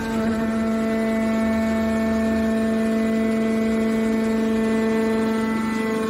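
Hydraulic power unit of a scrap metal baler, its electric motor and pump running with a steady pitched hum, the tone shifting slightly near the end.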